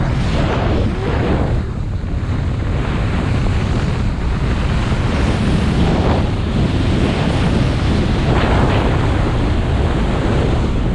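Wind buffeting an action camera's microphone as a skier runs downhill, a loud steady rumble, with the hiss of skis sliding on packed snow swelling a few times, about half a second, six seconds and eight and a half seconds in.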